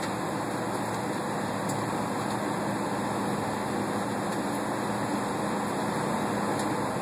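Steady cabin air-conditioning noise with a low hum, heard inside a parked Boeing 757's cabin before pushback.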